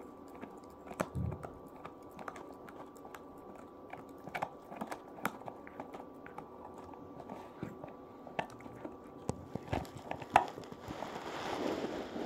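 Puppy gnawing on a thick dried chew stick: irregular clicks and crunches of teeth on the hard chew. There is a soft thump about a second in and a short rustling near the end.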